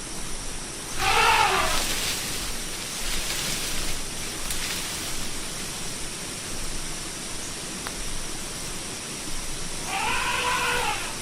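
Elephant giving two short calls, each rising then falling in pitch, about a second in and again near the end, over a steady hiss.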